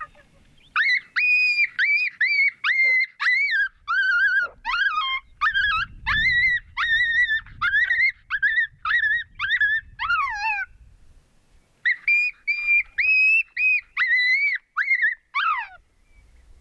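A canine barking over and over in short, high yips, about two a second. The barking stops briefly about eleven seconds in, then starts again in a second run.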